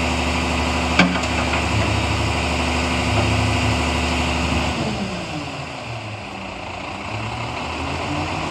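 Front-loading garbage truck's diesel engine idling steadily, with a single sharp knock about a second in. About five seconds in the engine note drops away, then climbs again as the engine picks up speed.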